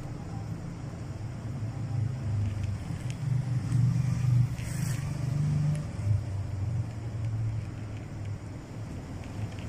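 A low, wavering rumble that swells about halfway through, over faint crunching of a cat chewing dry kibble.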